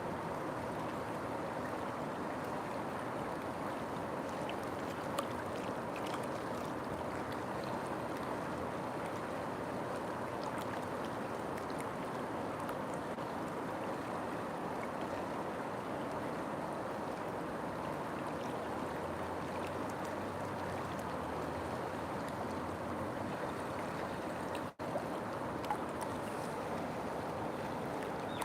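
River water flowing, a steady rushing noise that breaks off for an instant near the end.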